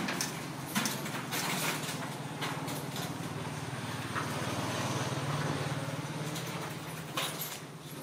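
A low, steady engine hum that swells to its loudest a little past the middle and eases off near the end, with a few sharp clicks and knocks.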